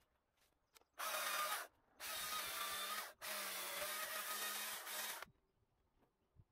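Stihl MSA 220 battery chainsaw run in three short bursts, each starting and stopping sharply; the last is the longest, about two seconds.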